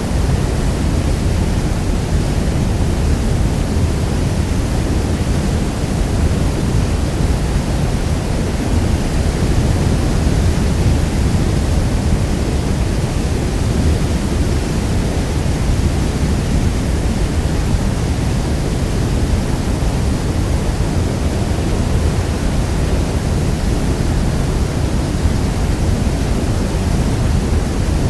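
Niagara Falls' water thundering down: a steady, deep, even rush of falling water.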